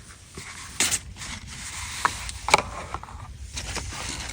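Light handling of a cardboard pencil box and its packaging on a desk: a few short knocks and scrapes, the strongest about a second in and another about two and a half seconds in.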